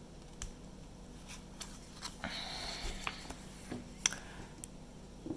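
Quiet handling of a small toy and its packaging: a few soft clicks and taps, with a brief rustle about two seconds in.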